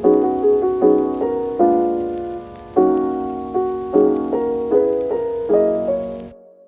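Background lofi music led by a soft piano playing chords, ending with a fade and a sudden cut to silence near the end.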